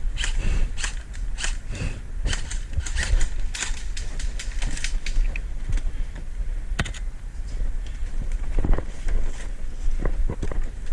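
Irregular sharp clicks and snaps, unevenly spaced, over a steady low rumble of wind on the microphone.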